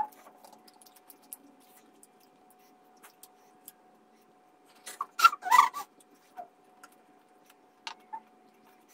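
Close-miked eating sounds as a chicken wing is bitten and chewed by hand: scattered small clicks, with a louder burst of smacking and chewing about five seconds in. A faint, steady high-pitched whine runs underneath throughout.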